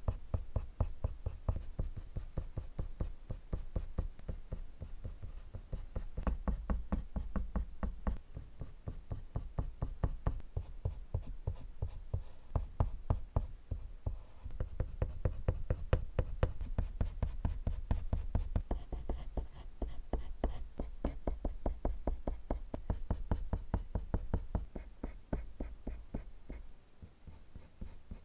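Prismacolor colored pencil scratching on drawing paper in quick, short strokes, several a second, as fur is hatched in. The strokes get sparser and quieter near the end.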